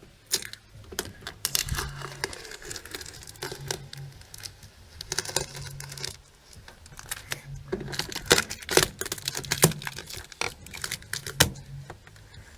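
Crinkly material being handled and torn: many sharp crackles and clicks, with a low hum coming and going.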